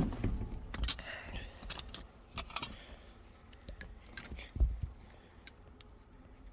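Metal hand tools and parts clinking and tapping against the door's sheet metal and handle hardware: irregular light clicks, with a louder knock about a second in and a dull thump a little past the middle.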